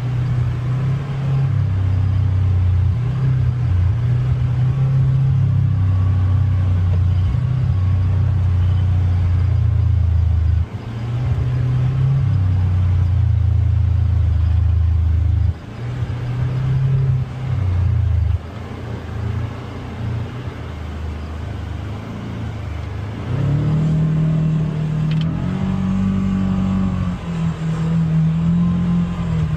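UTV engine running under varying throttle on a rough trail, its note rising and falling as the driver gets on and off the gas. The engine drops off briefly around ten, fifteen and eighteen seconds in, and revs higher for the last few seconds.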